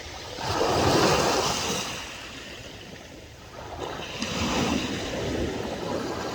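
Sea waves washing in, one surge swelling about half a second in and fading, and another building about four seconds in.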